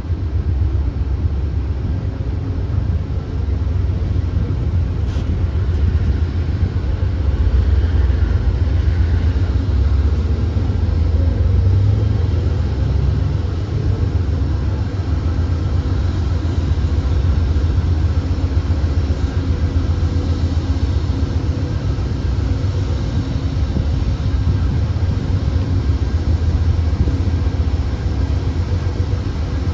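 Amtrak passenger train rolling slowly past while its P42 diesel locomotive shoves it: a steady low rumble with a faint steady hum.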